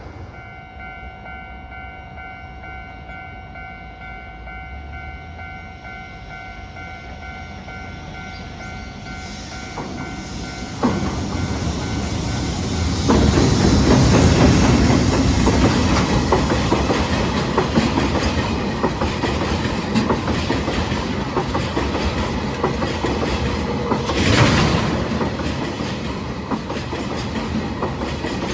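Electric freight train hauling oil tank cars passing close by. A steady whine of several pitches comes first, then from about eleven seconds in a loud rush of wheel and rail noise with the clickety-clack of the tank cars' wheels over rail joints.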